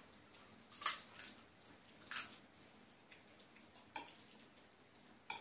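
Faint eating sounds: a handful of short, wet mouth clicks and smacks while chewing food, spread over a few seconds.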